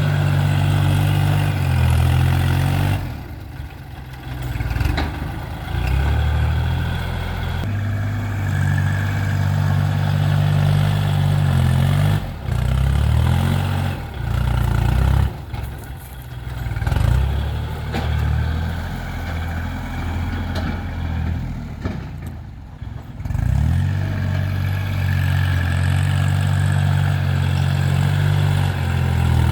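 Heavy earthmoving machine's diesel engine running at a worksite pace. Its pitch and loudness rise and fall several times as the load changes, with brief dips where it eases off.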